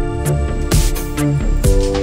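Electronic background music with a heavy bass and a steady drum beat; the held chord changes near the end.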